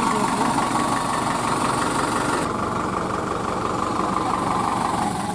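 Diesel tractor engine idling steadily; about halfway through the higher hiss drops away suddenly while the idle goes on.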